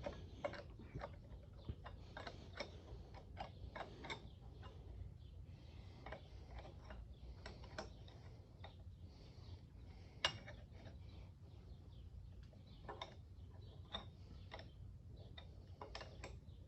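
Faint, irregular metallic clicks and ticks from a wrench and loosened parts being worked on a lathe's compound rest, with one louder click about ten seconds in.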